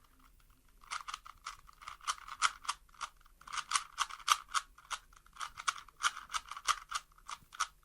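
Plastic Rubik's Cube being twisted fast: a quick run of sharp clicks and clacks, several a second, starting about a second in. These are the last turns of a solve.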